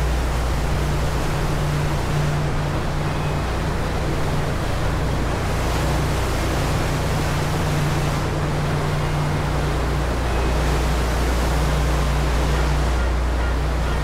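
Passenger ferry under way: a steady low engine hum under the continuous rushing wash of the churning wake and wind.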